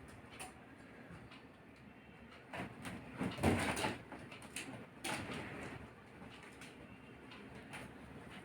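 Kittens playing: faint scattered rustles and soft knocks, with a louder scuffle about three and a half seconds in and another knock about five seconds in.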